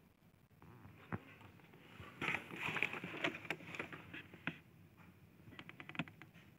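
Cardboard helmet box and packaging being handled: a single tap about a second in, then a few seconds of rustling and scraping with sharp clicks, and a quick run of light taps near the end.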